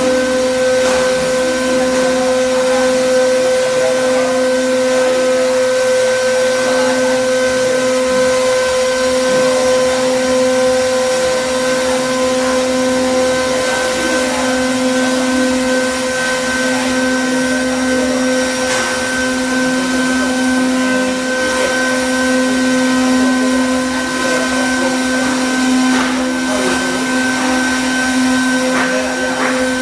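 Air-cooled 3 kW CNC router spindle running steadily: a constant whine of several steady tones over a rushing hiss of air.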